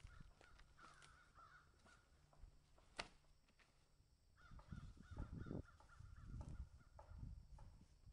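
A bird calling over and over in quick runs of wavering, crow-like notes. About three seconds in there is a single sharp knock as a long dead branch is dropped onto a pile of wood, and low rumbling noise comes in the second half.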